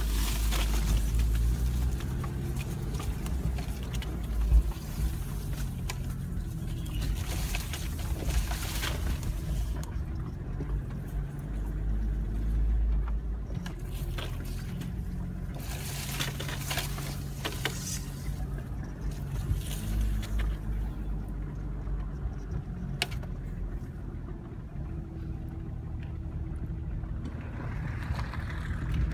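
A BMW's engine running at low speed on a rough dirt track, heard from inside the cabin, with branches and leaves brushing and scraping along the car at times.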